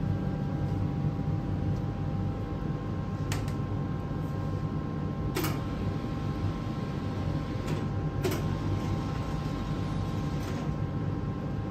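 Steel tank of water boiling and steaming steadily with a low rumble, cedar strips soaking in it to soften for bending into magewappa. Five short sharp clicks and knocks break in, the loudest about five seconds in.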